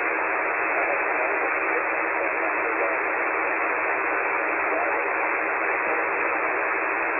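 Steady hiss of band noise and static from a KiwiSDR shortwave receiver in lower-sideband mode on the 40-metre amateur band, squeezed into a narrow, telephone-like band of pitch by the sideband filter, with no clear voice coming through.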